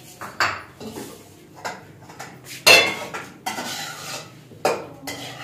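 Dishes and metal utensils being handled on a kitchen counter: a series of clinks and clatters as crockery is picked up and set down, the loudest clatter about halfway through.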